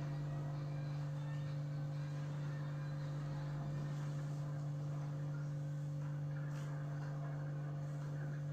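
Steady low hum with no change: one strong low tone and a few fainter tones above it, over faint background noise.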